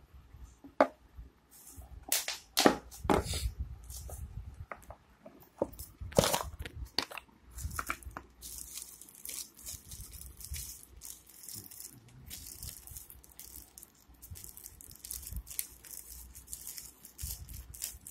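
Handling of a phone's cardboard box and packaging: a few sharp taps and knocks in the first several seconds as the phone and box pieces are set down, then on-and-off crinkling and rustling of packing material being pulled from the box.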